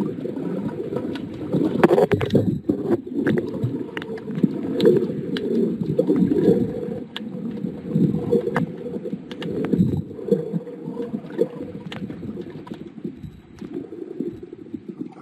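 Muffled underwater water noise picked up by a submerged camera during snorkeling: water sloshing and gurgling as the swimmer moves, with scattered small clicks.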